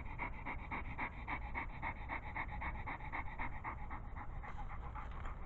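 German Shepherd panting in a quick, even rhythm.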